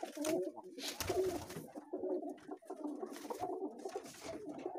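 A flock of domestic pigeons cooing continuously in a small loft, with a few short rustles among the birds.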